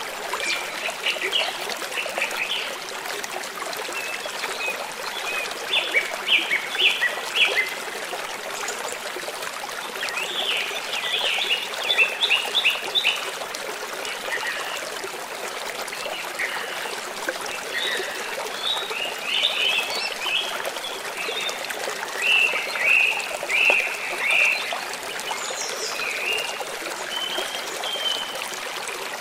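A stream or brook running steadily, with birds singing over it in several bursts of quick, high chirps.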